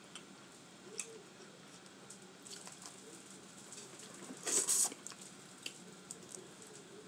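Close-up sounds of eating boiled crawfish: a few small clicks of shells being cracked and peeled, then a wet slurp and smack, the loudest sound, about four and a half seconds in as a piece of crawfish goes into the mouth.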